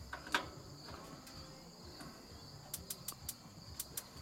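Sharp clicks of a gas barbecue's spark igniter: one about a third of a second in, then a quick run of about eight clicks in the second half, without the burner catching. Crickets chirp steadily behind.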